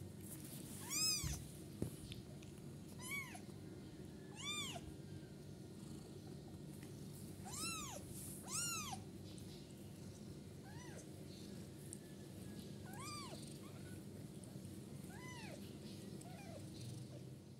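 Kittens one to two weeks old mewing: about nine short, high calls that rise and fall in pitch, spaced a second or two apart and loudest about a second in and again around the middle. Under them runs a steady low purr, plausibly from the nursing mother cat.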